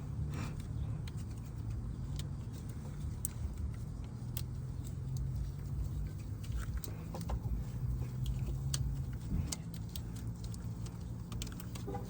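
Scattered light clicks and taps of hand work on a car's belt and pulleys, over a steady low hum.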